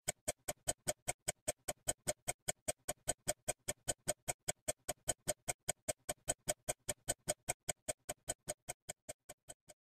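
Steady mechanical ticking of a watch, about five even ticks a second, fading away over the last couple of seconds.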